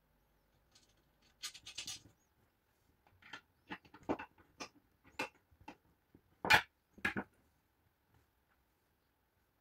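Aluminium extrusion profiles being handled on a wooden table: a short scrape about one and a half seconds in, then a string of irregular metal clicks and knocks as the pieces and corner bracket are fitted, the loudest about six and a half seconds in.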